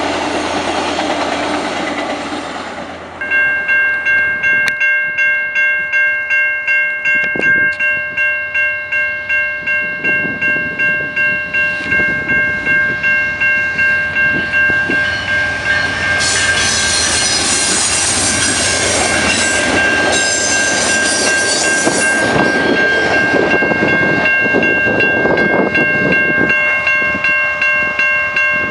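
Railroad crossing bell ringing steadily, about two strokes a second, while a VIA Rail passenger train passes, its wheels and cars loudest for several seconds in the middle. For the first few seconds, before the bell, passenger cars roll past.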